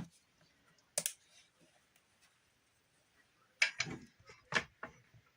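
A few light knocks and clicks from handling a wooden trim board: a single one about a second in, then a short cluster near the end.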